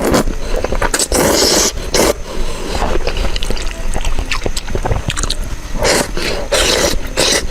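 A person eating thick noodles, with several loud slurps and chewing in between.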